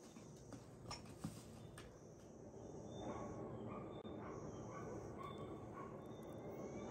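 Faint outdoor ambience with birds chirping in short notes that grow louder from about halfway through, and a few soft clicks in the first two seconds.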